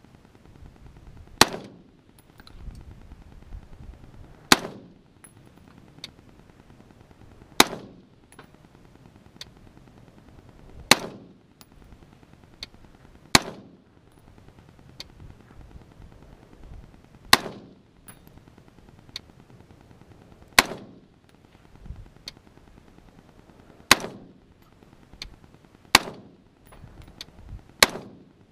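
Smith & Wesson M&P AR-15 rifle fired in slow, deliberate single shots, about ten in all, spaced two to four seconds apart, each crack trailed by a short echo.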